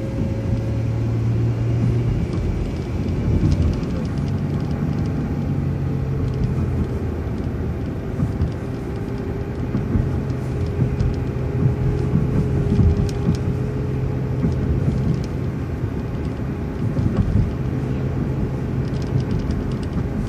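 City transit bus driving: a steady low engine drone with road rumble and a faint steady whine.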